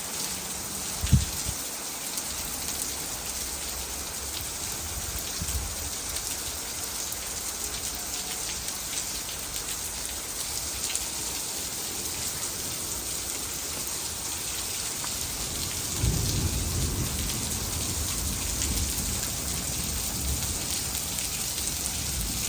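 Steady rain falling and pattering on surfaces, an even hiss. There is a short low thump about a second in, and a louder low rumble comes in about 16 seconds in and carries on to the end.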